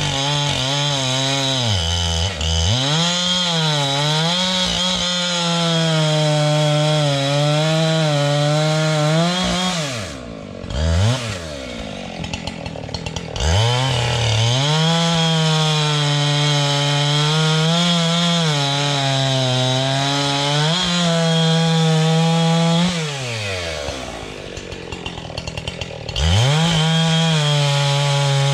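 Husqvarna 372XP two-stroke chainsaw bucking logs into rounds, running at full throttle with its engine note sagging and recovering as the chain bites. It drops to idle twice between cuts, about ten seconds in and again past twenty seconds, then revs back up.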